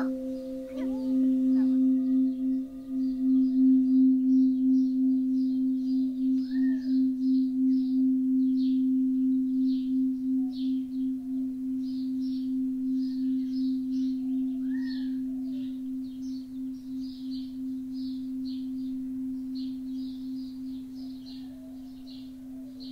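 Crystal singing bowl ringing one steady low tone with a slow pulsing wobble, slowly fading.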